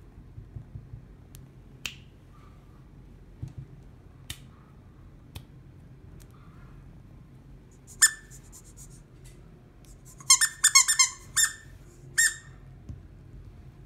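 Squeaky toy squeezed: one short, high squeak about eight seconds in, then a quick run of squeaks a couple of seconds later and one more just after. A few sharp clicks come before them.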